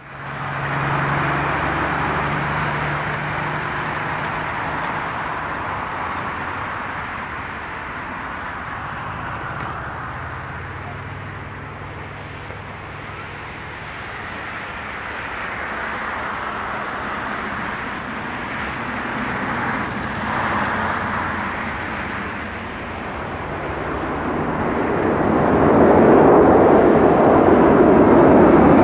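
Boeing 747-400's four Pratt & Whitney PW4056 turbofans at takeoff thrust: a steady jet engine rumble through the takeoff roll and liftoff. It grows much louder over the last few seconds as the climbing jet passes low overhead with its landing gear retracting.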